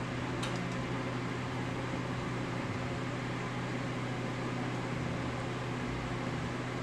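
A steady machine hum, with a faint click about half a second in.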